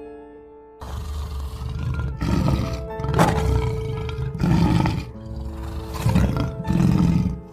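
Lion growling and roaring in several loud surges, over soft piano music.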